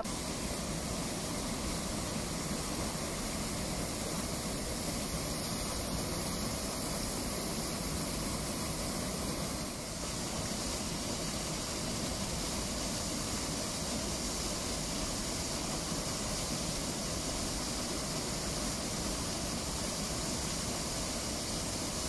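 Steady rushing of water falling and splashing beneath icicles: a small waterfall running under ice.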